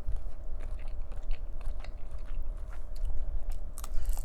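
Close-miked chewing of shrimp: irregular soft wet clicks and smacks of the mouth.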